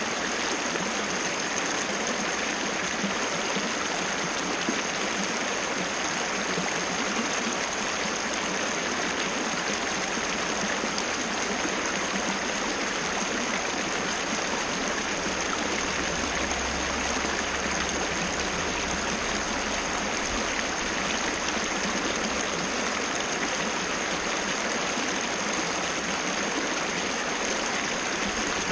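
Waterfall: water falling and rushing steadily with an even, unbroken splashing hiss.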